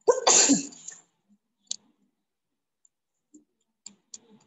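A loud, rough burst of noise lasting about a second at the start, then a few scattered sharp clicks, like a computer mouse being clicked.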